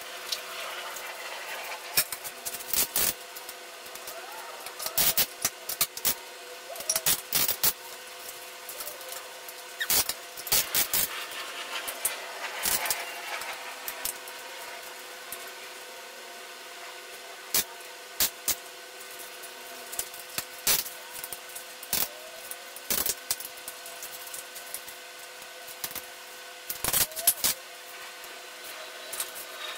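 Scattered clicks, clinks and knocks of parts being handled as a Volkswagen CC front strut is assembled on a strut spring compressor: the top mount and spring being seated on the shock.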